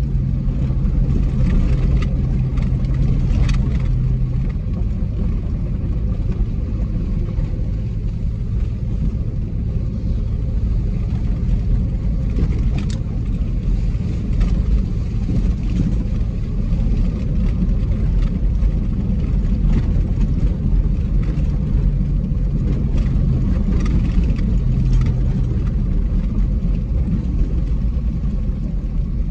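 Dodge Grand Caravan driving on a gravel road, heard from inside the cabin: a steady low rumble of engine and tyres on gravel. A few sharp ticks come through, about two and three and a half seconds in and again around thirteen seconds.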